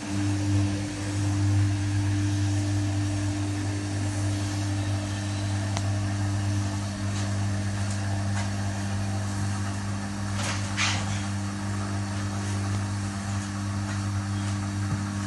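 Samsung WW80J5555FWEU washing machine's drum motor running with a steady hum, turning the drum during a Delicates 40°C wash. The hum starts at once and stops near the end, with a little swish of wet laundry partway through.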